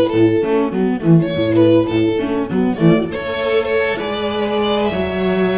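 Violin and cello music playing a melodic classical-style piece. Quicker moving notes in the first three seconds or so give way to longer held notes.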